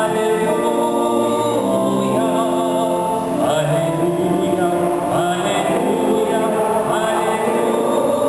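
Church music: voices singing over long held chords from an accompanying instrument, without a break.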